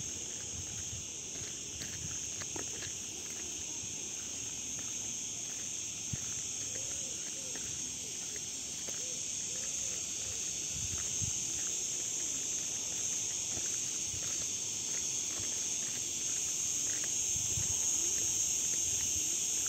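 Insects shrilling in a steady, high-pitched chorus, growing a little louder toward the end.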